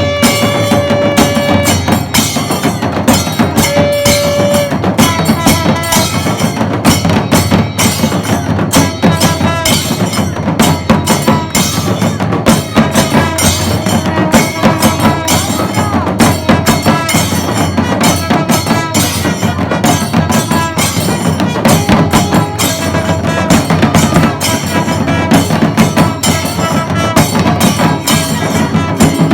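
Kailaya vathiyam ensemble of Tamil temple drums and cymbals playing a fast, dense rhythm, with short held horn notes near the start and again later.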